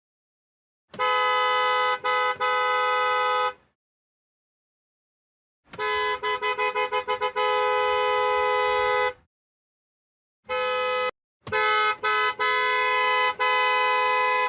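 Car horn honking in three bouts. First a long blast about a second in, then a quick string of short toots that runs into a long hold. Near the end comes a short toot and another long blast, broken twice for an instant.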